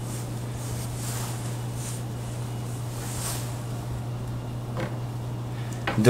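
Steady low background hum with a few faint, soft rustles of handling as the MacBook's removed bottom cover is set aside.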